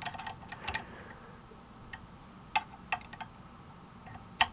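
Sharp metallic clicks from a small wrench on the bushing nut of a chrome Schaller guitar tuner as the nut is tightened, with several in the first second, a few more about two and a half seconds in, and one near the end.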